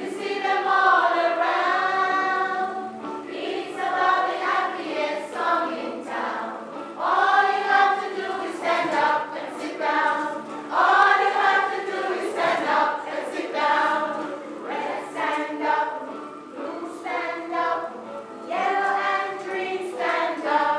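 A group of men and women singing a children's song about colours together.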